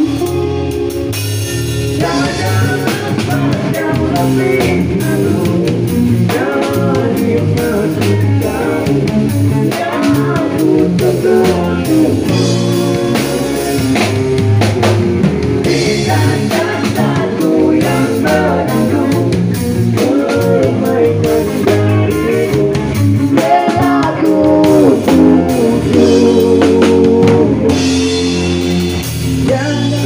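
Live rock band playing an instrumental break: a lead electric guitar plays a solo whose notes bend up and down, over bass guitar and a drum kit.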